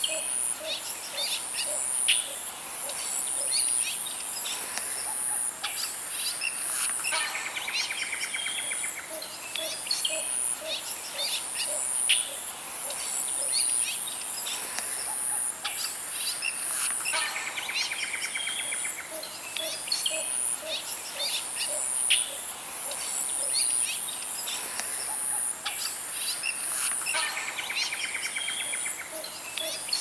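Call recording for the Australian Little Bittern: runs of short low notes among other wetland bird calls, over a steady high insect buzz. The sequence repeats about every ten seconds.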